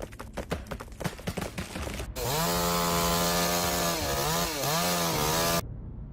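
Chainsaw engine opens up to full throttle about two seconds in, after a stretch of quieter irregular rattling. It runs at a steady high pitch, dips twice as it bogs under load in the cut, and drops back off about five and a half seconds in.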